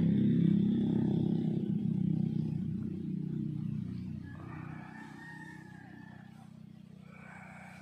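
A motor vehicle's engine, loud at first and fading away over about five seconds as it passes and moves off.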